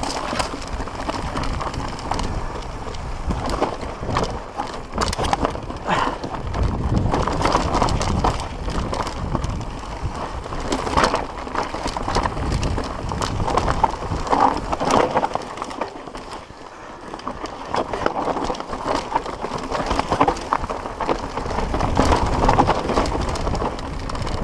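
Mountain bike descending a rough, rocky dirt trail: tyres crunching over dirt and stones, with the frame and chain rattling and knocking over the bumps. It eases off briefly about two thirds of the way through, then picks up again.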